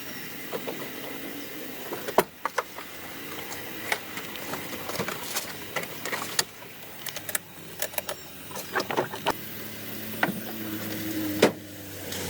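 A series of irregular clicks and knocks, the loudest about two seconds in and again near the end, with a faint motor hum coming in near the end.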